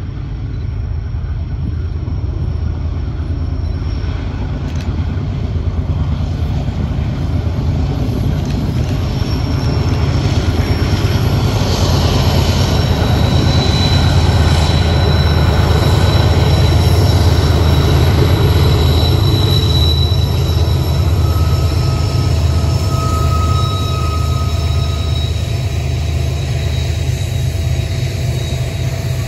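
A freight train rolling past, its diesel locomotives giving a heavy low rumble. Over the rumble come high, steady squeals of wheel flanges grinding against the rail on the curving track. The sound builds to its loudest about two-thirds of the way through, then eases off a little.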